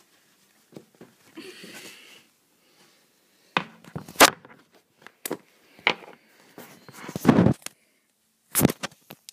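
A first aid pouch and its clip being handled: a soft rustle, then a string of sharp clicks and knocks, the loudest about four seconds in, with a short scrape near the end.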